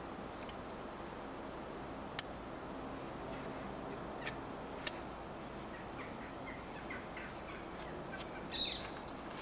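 A few sharp clicks and taps over steady background hiss, the sharpest about two seconds in, as a gloved hand works the rubber cover and cable on a starter motor's solenoid in a car's engine bay.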